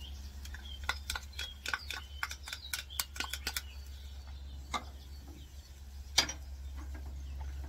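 A quick run of light clicks and taps as chopped garlic is tipped and scraped from a small cup into the hot cast-iron Dutch oven, followed by two or three separate taps, over a steady low hum.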